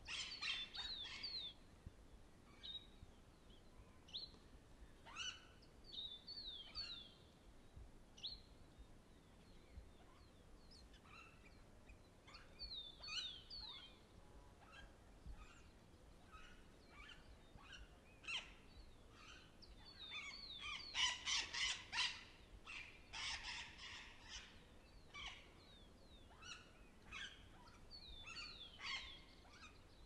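Parrots calling: a string of short, downward-sliding chirps and screeches scattered throughout, thickest and loudest about two-thirds of the way in.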